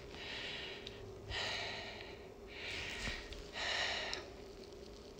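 A woman breathing hard after an intense interval workout: about four long, hissy breaths, a little over a second apart, as she gets her breath back.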